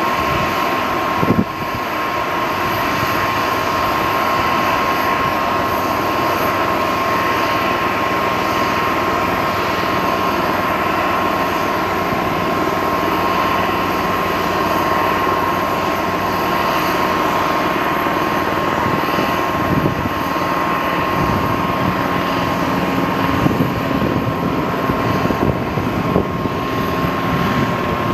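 De Havilland Canada Dash 8-200's Pratt & Whitney Canada PW123 turboprops running at ground idle: a steady high whine over a broad propeller and engine rush. A brief knock comes about a second in.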